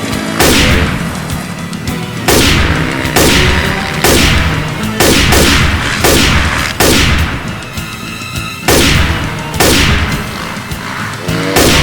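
Gunshots fired one at a time, about a dozen spaced roughly a second apart, each with a ringing tail, over background music.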